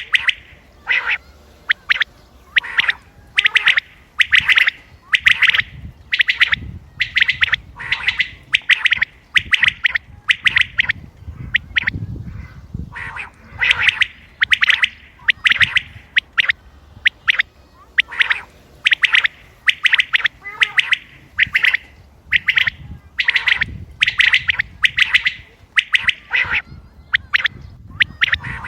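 Common quail calling over and over, short sharp calls about once a second, with a brief pause about halfway through.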